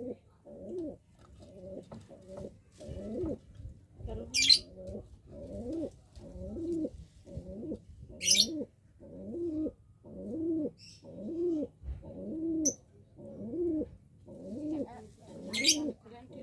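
Domestic pigeon cooing repeatedly in courtship, about one coo a second, each coo rising and falling in pitch. Three brief, loud rustling bursts cut in among the coos.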